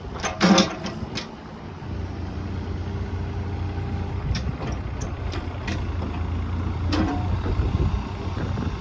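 Yanmar diesel engine of a Komatsu PC30MR-5 mini excavator starting and settling into a steady idle about two seconds in, after a short loud burst near the start. A few sharp clicks and knocks sound over the idle.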